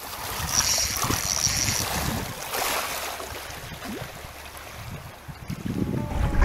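Sea water splashing and lapping with wind, and wind rumble on the microphone building near the end.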